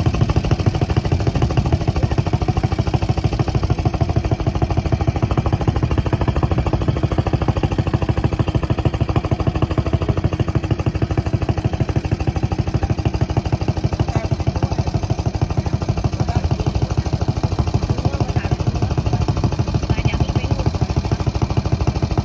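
A small engine running at a steady speed with a rapid, even firing beat.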